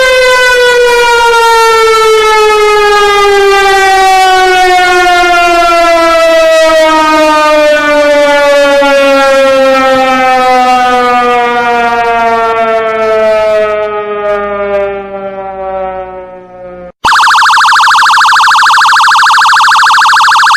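Civil defense siren winding down: one long falling wail whose pitch sinks steadily as it fades away, stopping about 17 seconds in. A loud siren with a fast warble then starts abruptly near the end.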